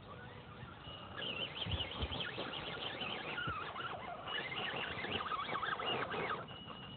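Electric RC rock crawler climbing a steep rocky slope, its motor and gears giving a high whine that wavers quickly in pitch with throttle and load, with a couple of low thumps about two seconds in.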